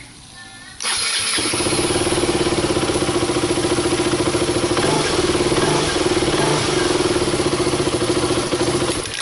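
KTM RC 200's single-cylinder engine starting about a second in and then running steadily at an even pitch. It fires up with the starter relay's normally open contacts jumpered, bypassing a burned termination unit.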